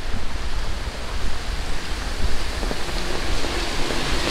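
Tropical rain falling steadily, a dense hiss of rain on surfaces, with a low rumble underneath.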